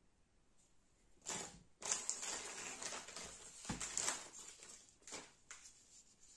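Thin plastic packaging bag crinkling and rustling as it is handled, in bursts starting a little over a second in, with a dull knock about three and a half seconds in and a few light plastic clicks near the end.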